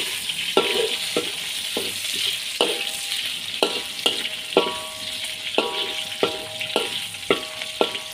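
Pork fat, garlic, shallots and ginger sizzling in hot oil in a wok as the pork fat renders, with a spatula scraping and knocking against the wok about every half second, each stroke leaving a brief ringing tone.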